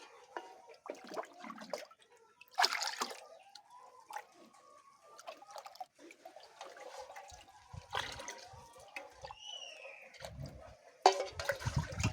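Liquid splashing and dripping in irregular bursts, with one short bird call about nine seconds in and a louder splash near the end.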